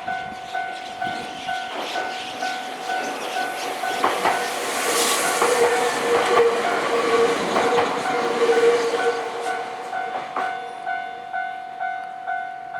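A Japanese railway level-crossing warning bell dings evenly about twice a second while a Nankai Kada Line train runs over the crossing from about four to ten seconds in, its wheels clacking over rail joints. The bell cuts off right at the end, once the train has cleared.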